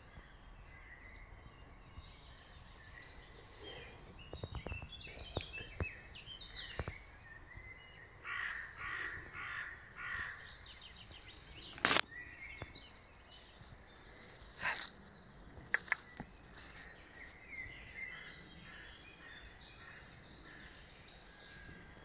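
A crow cawing, a run of about four harsh caws some eight seconds in, over small birds chirping, with a few sharp clicks near the middle.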